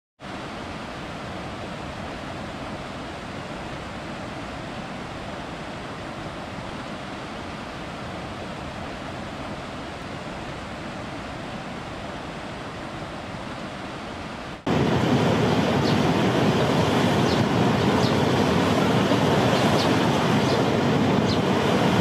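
Steady rush of water tumbling over rocks in a mountain stream's rapids. About 15 seconds in it cuts abruptly to a louder, fuller roar of falling water from a large waterfall.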